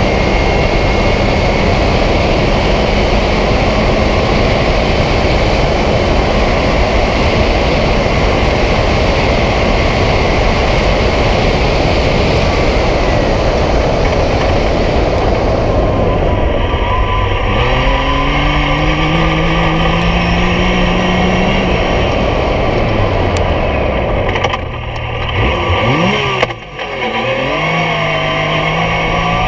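Yamaha YXZ1000R side-by-side's three-cylinder engine running at speed, buried in heavy wind and road noise for the first half. In the second half the engine note climbs steadily, then falls, with two brief dips near the end as the throttle comes off.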